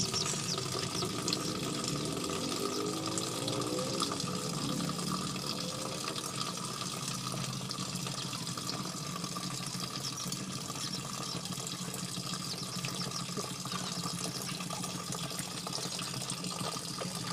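Guinea pig chewing a piece of cucumber held up to its mouth: a dense, continuous run of small wet crunches.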